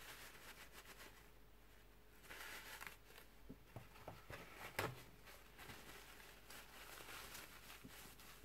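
Faint rustling and rubbing of a paper towel wiping polishing compound off a polished aluminium Normandy bicycle hub, with a few light taps.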